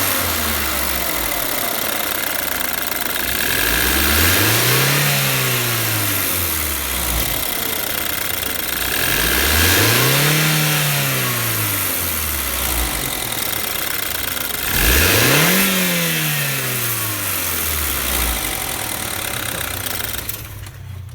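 BMW N20 2.0-litre turbo four-cylinder engine revved three times from idle, each rev rising and falling back, with the engine idling between. It is being revved to bring out an extraneous noise the owner hears in the engine.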